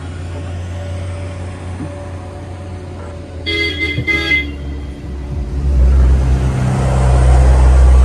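Road traffic: a steady low hum, then a vehicle horn tooting twice in quick succession about three and a half seconds in. A deep engine rumble then grows loud toward the end as a vehicle comes along the road.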